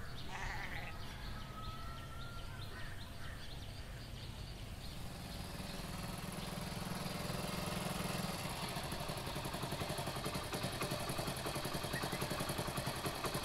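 Motorcycle engine approaching, growing louder through the second half with a fast, even engine beat.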